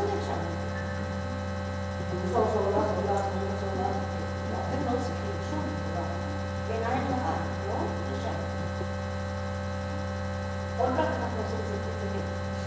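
Steady low electrical mains hum during a pause in the string orchestra's playing, with a few brief, faint scattered sounds from the players in the room.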